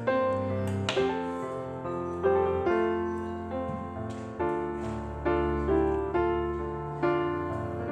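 Gentle piano background music, a slow melody of sustained notes over soft chords.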